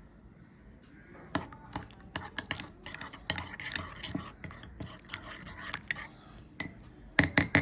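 Irregular clicking, tapping and scraping of small hard objects being handled, starting about a second in, with a cluster of louder knocks near the end.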